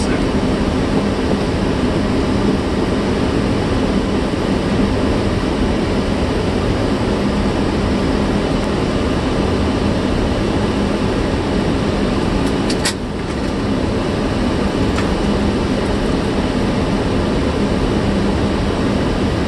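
Steady flight-deck noise of a Boeing 757-300 in flight: airflow and engine noise with a constant low hum. A brief click comes about 13 seconds in, with a short dip in the noise.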